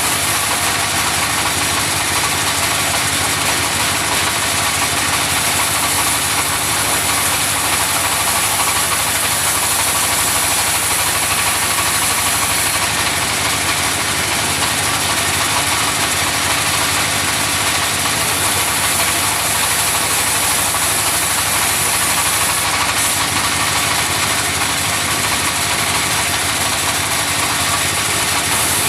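Engine-driven sawmill running steadily, with a constant machine noise that does not change through the stretch.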